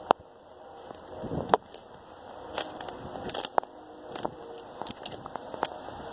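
Footsteps crunching through snow, dry leaves and twigs, with irregular sharp snaps of breaking sticks. Rushing water from a creek culvert outlet grows louder in the second half.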